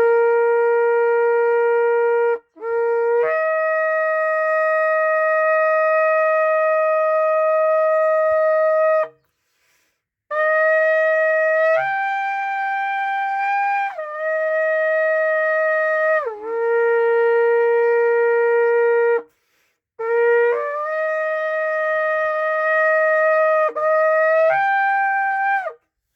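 Shofar blown in three long blasts, each holding a note and stepping up or down between two or three pitches, with short breaks of about a second between blasts.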